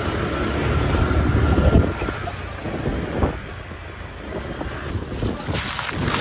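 Wind buffeting the microphone with a low rumble, strongest in the first two seconds and then easing into weaker gusts.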